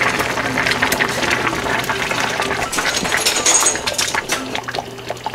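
Spatula stirring food in a pot on the stove: a busy run of scrapes and clicks over a wet, liquid sound, quieter near the end.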